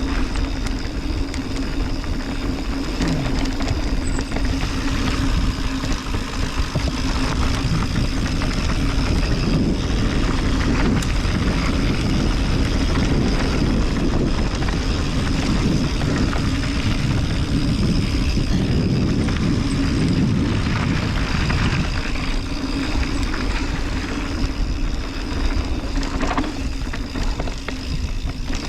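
Mountain bike descending a downhill bike-park trail: steady tyre noise on dirt, with rattle from the bike and rushing air.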